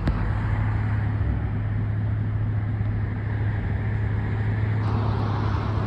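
Car engine running steadily: a constant low hum under an even hiss.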